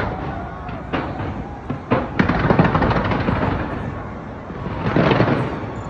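Fireworks going off: sharp single bangs about a second apart, then a dense run of crackling bursts from about two seconds in, and a second loud swell of bursts near the end.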